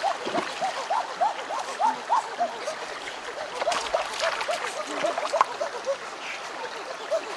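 Shallow rocky stream running, with splashes of bare feet running through the water, loudest around the middle. Over it, a steady series of short rising-and-falling animal calls, about three or four a second.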